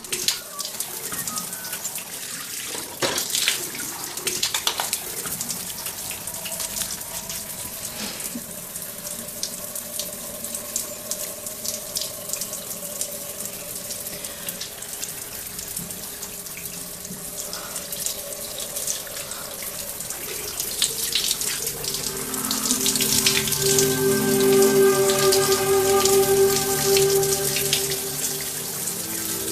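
Steady hiss of falling water dotted with many small splashes. Soft music with held notes comes in about twenty seconds in and grows louder.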